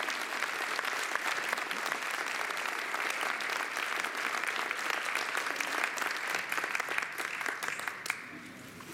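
Audience applauding, a dense spread of hand claps that dies away near the end.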